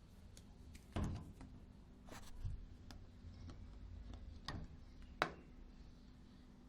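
Samsung WD136 front-load washer-dryer running its wash cycle: a steady hum under a low rumble, with several sharp clicks and knocks from the tumbling drum, the loudest a little after five seconds in.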